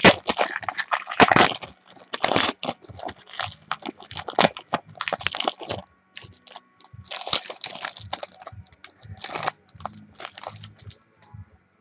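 Foil trading-card pack wrapper crinkling as it is torn open and handled by hand, in short irregular bursts that thin out near the end.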